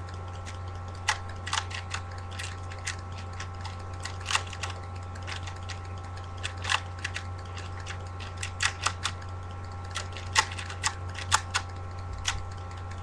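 Plastic 3x3 Rubik's Cube being turned during a speed-solve: irregular quick clicks and clacks of the layers snapping round, over a steady low electrical hum.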